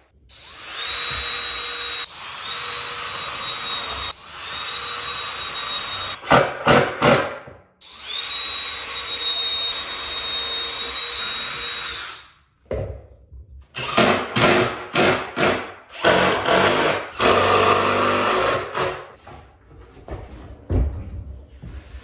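Cordless drill driving screws into wood, its motor running in three short runs of about two seconds and then one longer run of about four seconds. In the second half come a run of irregular knocks and clattering.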